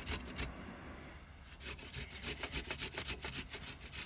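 Fresh ginger root being grated on a hand grater: rhythmic rasping strokes, which pick up into a quick steady run after a short lull about a second in.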